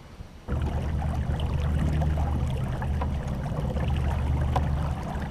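Electric trolling motor running as it pushes a small round boat, a steady low hum, with water splashing and gurgling against the hull. It starts suddenly about half a second in.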